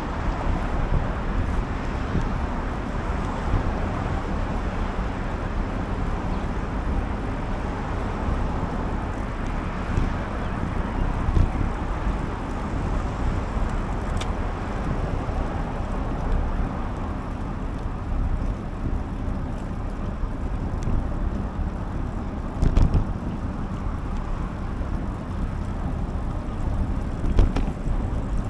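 Steady road and car-traffic noise heard from a moving bicycle, with a low rumble underneath and a few brief knocks.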